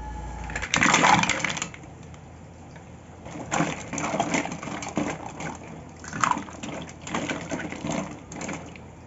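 Green mussels and ice cubes stirred by hand in ice water in a stainless steel bowl: shells and ice clink against each other and the bowl while the water sloshes, in irregular bursts. The loudest burst comes about a second in.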